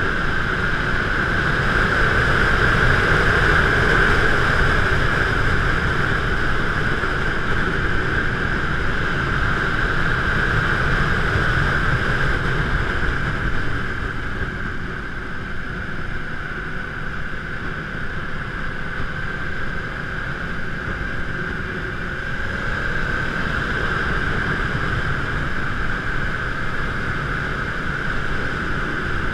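Steady riding noise from a moving bike: wind rushing over the microphone with road rumble underneath. It eases a little about halfway through and builds again near the end.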